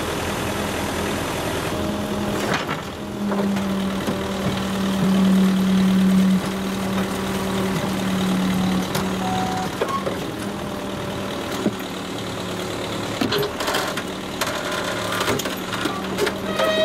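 Case 480C backhoe's engine running steadily while its hydraulics work the bucket, digging into wet soil, a little louder for a few seconds near the middle. A few knocks come through over the engine.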